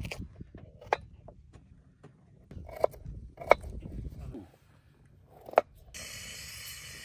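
Kitchen knife chopping raw potato on a plastic cutting board: four sharp knocks of the blade on the board, irregularly spaced, with faint crunching between. A steady hiss comes in near the end.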